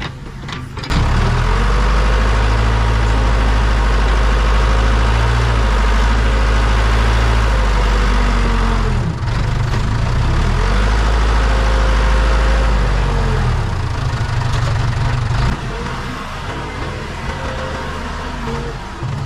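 Case 580 Super K backhoe loader's diesel engine working hard. It comes in loud about a second in, sags in pitch and recovers twice under changing load, then drops back to quieter running near the end.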